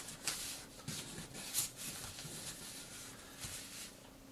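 A sheet of origami paper rustling and crinkling as it is folded and pressed into creases by hand.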